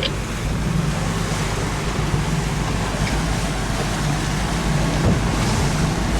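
Boat engine running steadily under way, a low hum under the rush of water and wind.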